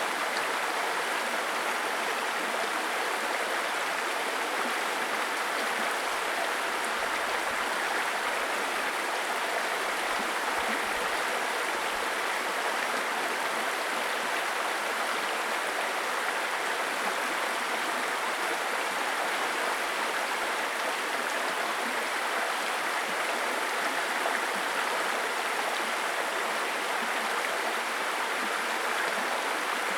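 Small stream babbling over stones: a steady, even rush of running water.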